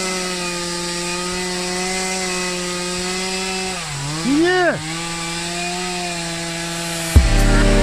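Stihl chainsaw running at a steady high speed while cutting into the trunk. Its pitch sags briefly about four seconds in as the chain loads up in the cut, then recovers. A sudden louder low rumble sets in near the end.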